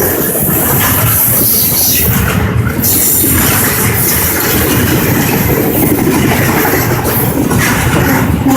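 Norfolk Southern freight train passing, a loud, steady noise of its wheels running on the rails.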